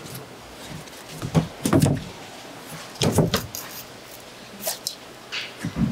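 Dull thumps and knocks as a small whole shark is handled on a plastic cutting board, with the knife knocking against the board and fish: heavy knocks about a second and a half in and again about three seconds in, lighter ones near the end.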